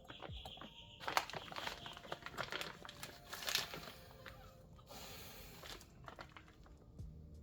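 Handling noise from work on the bench: rustling and crinkling with many small clicks and knocks, then a brief hiss about five seconds in.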